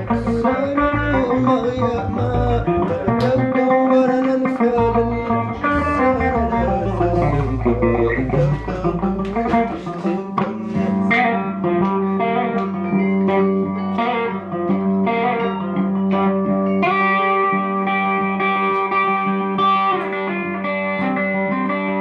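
Guitar-led band music: plucked guitar lines with wavering, bending notes over a steady low bass note.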